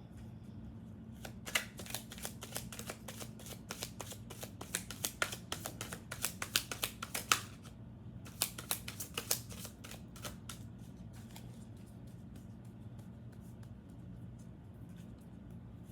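A deck of thick, sturdy cardboard tarot cards being shuffled by hand: a quick run of card flicks and slaps for about six seconds, a short pause, another couple of seconds of shuffling, then it stops. A low steady hum lies underneath.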